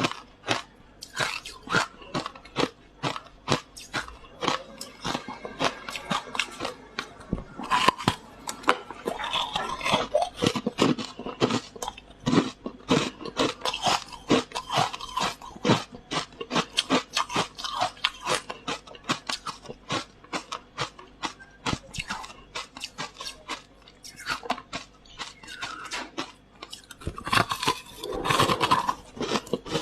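Frost ice being bitten and chewed close to the microphone: a steady stream of sharp crunches, denser chewing in stretches about a third of the way in and again near the end.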